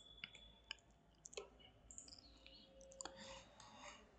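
Faint, scattered clicks of a computer keyboard being typed on, a few keystrokes at uneven intervals against near silence.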